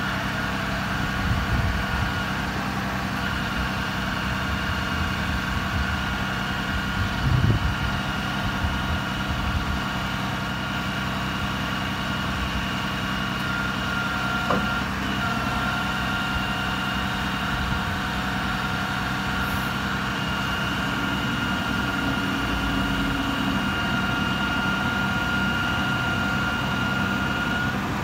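6.7L Cummins turbo diesel of a Ram 5500 bucket truck idling steadily, powering the Altec boom's hydraulics, with a steady high whine over the engine drone. A brief thump comes about seven seconds in and a short click about halfway through.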